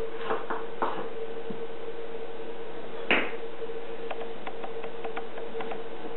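Thin potato slices and their bowl being handled: a few light clicks in the first second and one short clatter about three seconds in, over a steady background hum.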